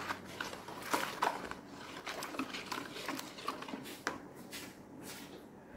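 Plastic spatula stirring foamy homemade liquid soap in a plastic basin: irregular swishes and light scrapes against the basin, stronger in the first few seconds.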